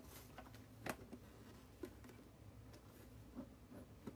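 A few faint, scattered clicks and taps from handling a Pokémon collector's tin and its packaging as it is being opened.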